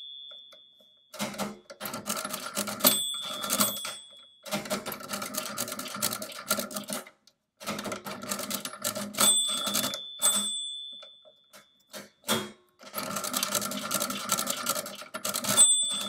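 Brunsviga Nova 10 stepped-drum mechanical calculator being hand-cranked through a division: runs of rapid clattering crank turns with short pauses as the carriage is shifted. The machine's bell rings three times, each ring lingering about a second, as the register turns past zero into red complement numbers.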